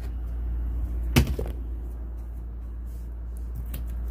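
Kuppet 10 lb portable washing machine being handled: one sharp knock of its hard plastic body about a second in, then a couple of faint taps near the end, over a steady low hum.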